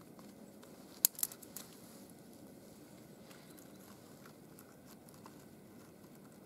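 Thin dry twigs snapping and crackling as they are broken and pushed by hand into the cut in the top of a log: a quick cluster of sharp snaps about a second in, then faint scattered crackles.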